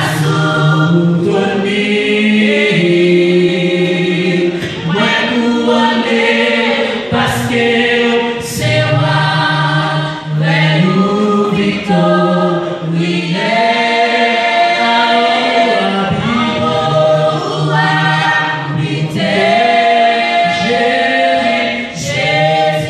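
A women's vocal group singing a Christian worship song in harmony, several voices holding chords together and moving between them.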